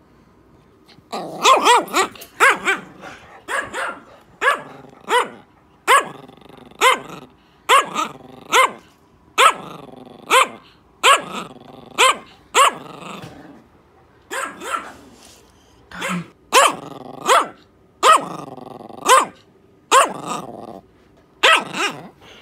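A dog barking and growling: quiet for about a second, then a long run of sharp barks, roughly one a second, with growling between them.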